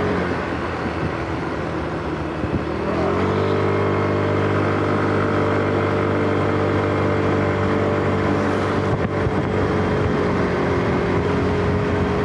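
Small motorbike's engine running under way: it eases off briefly, then rises in pitch as it picks up speed about three seconds in, and holds a steady cruise after that.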